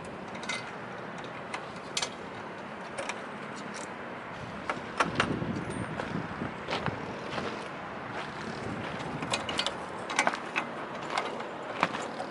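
Scattered sharp clicks and knocks of bolts, washers and tools being handled while siren parts are bolted together, over a steady background hiss. The clicks bunch up about five seconds in and again near the end.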